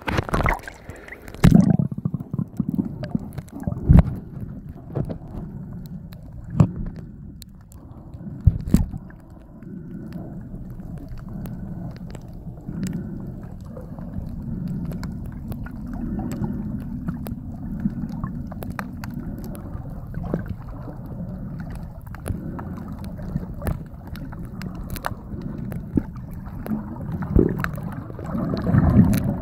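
Underwater sound picked up by a submerged phone microphone in the sea: a muffled, low water rumble with scattered sharp knocks and clicks. The first second or so is brighter, as the phone goes under at the surface.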